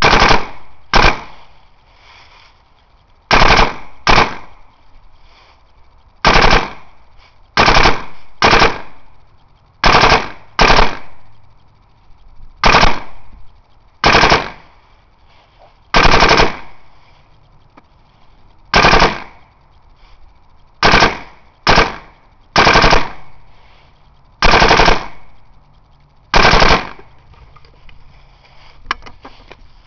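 MR-1 paintball marker firing close to the microphone: about eighteen loud shots at irregular intervals, one to three seconds apart, each cracking sharply and fading quickly.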